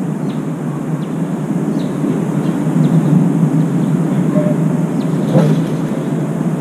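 Steady low rumbling background noise, with a brief sharper sound about five seconds in as a crow pushes off the metal balcony railing and flies away.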